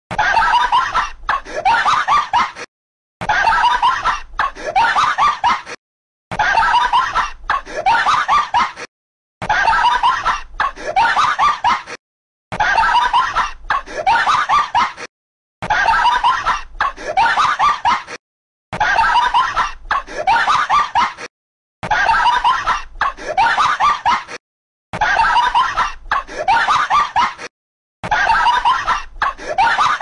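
A meme laugh sound effect: a person's snickering, giggly laugh about three seconds long, looped again and again with a short silent gap between repeats, about every three seconds.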